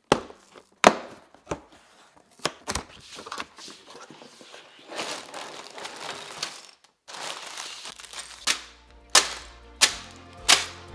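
A cardboard LEGO set box being opened, with several sharp knocks and thunks as its flaps and tabs give, then the plastic bags of bricks crinkling as they are pulled out. Background music with an even beat comes in about eight seconds in.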